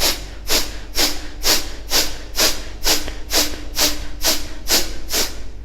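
Rapid, forceful breaths blown out through the nose, kapalabhati-style, in a steady rhythm of about two sharp puffs a second, a dozen in all. The nose is being cleared of leftover water and loosened mucus after jala neti nasal rinsing.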